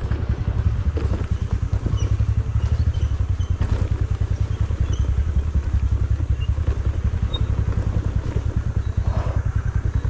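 TVS Ntorq 125 scooter's single-cylinder engine running steadily at low speed while being ridden, with a fast, even throb.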